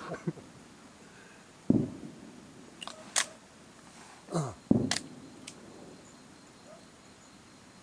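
Fireworks shells bursting: two booms about three seconds apart, each with a short echoing tail, and a few sharp cracks in between.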